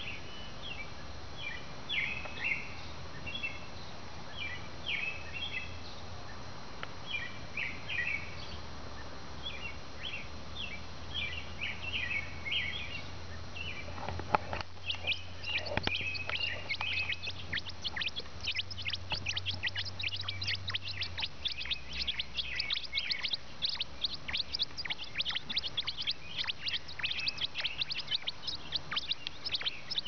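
Nestling birds in a nest box begging with high chirps, in short bursts at first; after a knock about halfway through, the chirping becomes a fast, unbroken stream.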